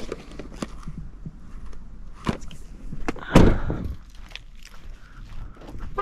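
Footsteps on gravel and handling of gear: scattered clicks and knocks, with one loud thump about three and a half seconds in.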